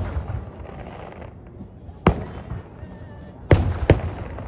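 Fireworks shells bursting overhead: a sharp bang about two seconds in, then two more close together about three and a half seconds in, each with a short echoing tail.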